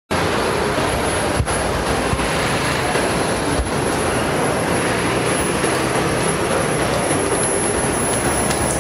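Steady, loud rush of city street traffic noise, cutting in suddenly at the start, with a couple of faint clicks.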